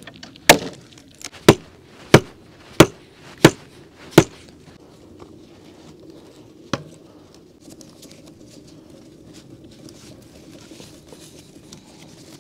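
Hatchet striking a wooden stick: six sharp blows about two-thirds of a second apart, then they stop; one more single knock a couple of seconds later.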